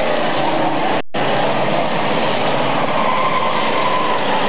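Several race car engines running hard together as the field laps the oval, a dense steady din. The sound cuts out for an instant about a second in.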